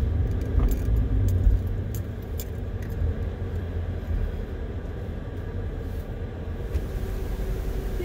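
A car rolling slowly forward, heard from inside the cabin: a steady low rumble of engine and tyres, with a few light clicks and rattles.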